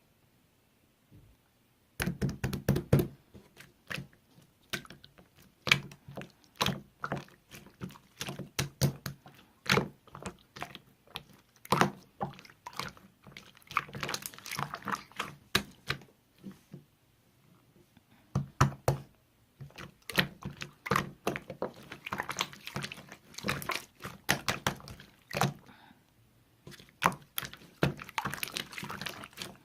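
Slime being pressed and squished by hand, making a fast, irregular run of wet clicks and small pops. It starts about two seconds in and pauses briefly twice.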